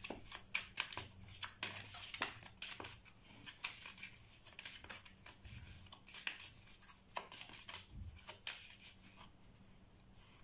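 Tarot deck shuffled by hand: a run of short, irregular papery swishes and clicks of cards sliding over one another, thinning out near the end.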